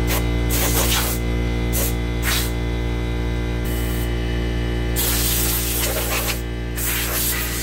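Compressed-air blow gun blowing out an empty motorcycle oil tank in repeated hissing bursts of air, the longest starting about five seconds in, over a steady hum.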